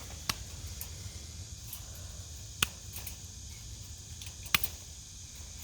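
Wiha 8-inch BiCut diagonal cutters snipping through old rusted fence wire: three sharp snaps about two seconds apart, the last the loudest.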